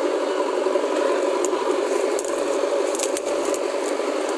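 JCB backhoe loader's diesel engine running steadily, with a few light rattling clicks from the machine.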